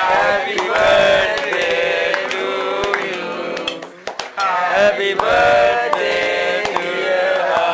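Singing of a melody throughout, with a few sharp claps among it.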